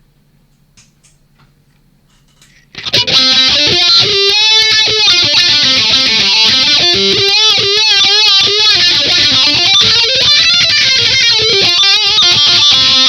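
Faint amplifier hum, then about three seconds in a distorted electric guitar starts playing loudly through a Cry Baby GCB95 wah pedal, its tone sweeping up and down over and over as the pedal is rocked.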